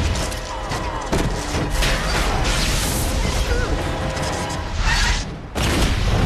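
Film action sound effects of a fusion reactor going out of control: booms, crashes and crackling sparks, with several sudden hits and a brief sharp drop in level shortly before the end.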